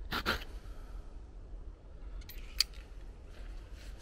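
Knife blade cutting into a wooden stick while carving a hook notch: two quick cuts at the start, then a few light clicks and one sharp click about two and a half seconds in.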